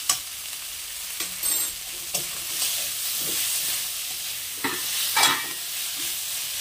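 Onion, tomato and spice masala sizzling in oil in a metal kadai, with a flat metal spatula scraping against the pan as it is stirred: a steady hiss with a few sharp scrapes.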